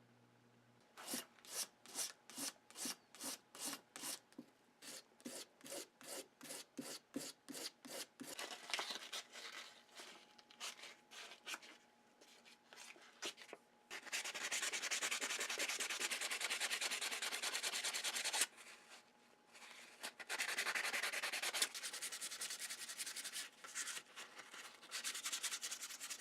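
Small steel knife blade, made from an old drill bit, being rubbed by hand with an abrasive to sharpen and smooth it. It starts as quick back-and-forth strokes, about three a second, then turns into longer stretches of continuous scraping.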